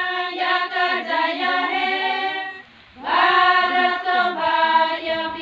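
A group of mostly women's voices singing together in unison, unaccompanied, with a short pause a little past halfway before the singing goes on.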